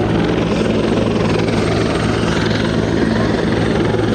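Helicopter coming in to land at close range: its rotor chops steadily and fast over a thin, high turbine whine.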